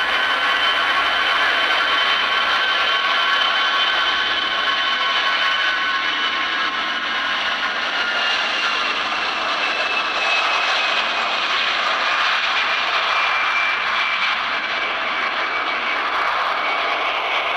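Jet engines of an AirAsia Airbus airliner at take-off power during its take-off roll. A steady rush carries a high whine that slowly falls in pitch.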